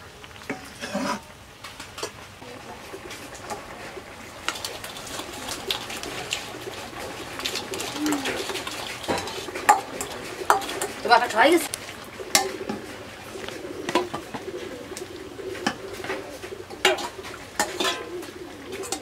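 A steel ladle stirring a simmering curry in a blackened wok, clinking and scraping against the wok and a steel bowl with many sharp knocks. Pigeons coo in the background, more steadily in the second half.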